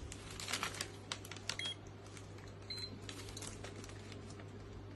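Scattered light clicks and soft rustles of hands handling a handheld microchip scanner and a paper packet, with two very brief faint high beeps in the middle, over a steady low hum.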